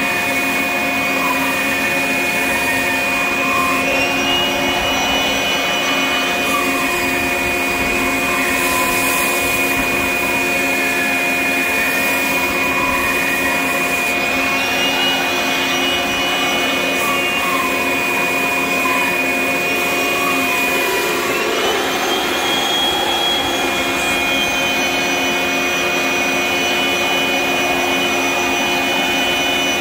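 Shop vacuum running steadily together with a drywall dustless sander on low speed, sanding the painted boat bottom with 60-grit paper; the sander's whine dips and rises again now and then as the pad is worked over the hull.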